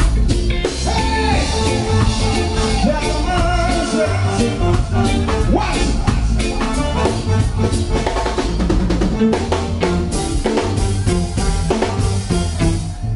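Live reggae band playing, with a drum kit keeping the beat over a heavy bass line.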